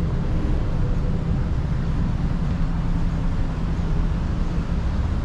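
Street traffic noise, a steady low rumble of cars on a city road.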